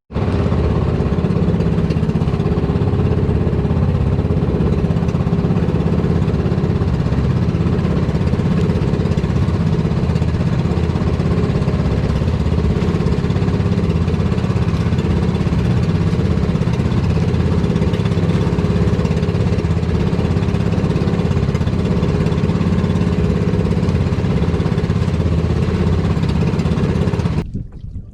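Small boat engine running steadily at a constant speed, a loud low drone with no revving, cutting in and out abruptly.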